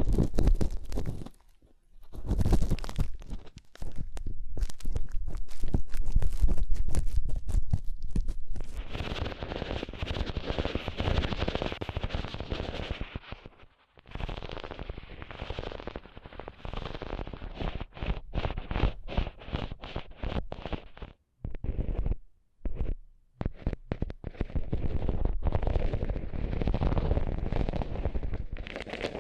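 Close-miked ASMR trigger sounds: dense, rapid crackling and scratching against the microphone, stopping briefly a few times.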